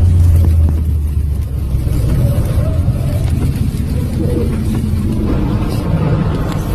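A vehicle driving along a flooded highway in hurricane rain and wind: a loud, steady low rumble from the road and the driving, with a spray-like hiss above it. The rumble is heaviest in the first second, then eases a little.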